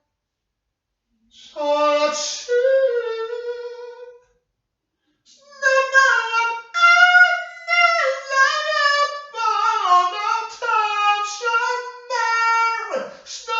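A single high voice singing, pausing briefly just after the start and again around four seconds in, then singing on without a break from about five and a half seconds in.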